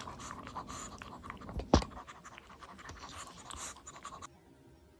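Shih Tzu eating from a small ceramic bowl: soft chewing and licking with small clicks of teeth and tongue against the bowl, and one sharper click a little under two seconds in. It stops about four seconds in.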